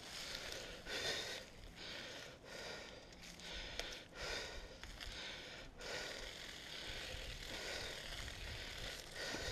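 Heavy, rhythmic breathing, a breath roughly every second, over the rustle of travelling fast along a dirt forest trail.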